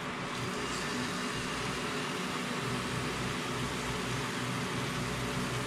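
A steady, even hiss with a low hum beneath it.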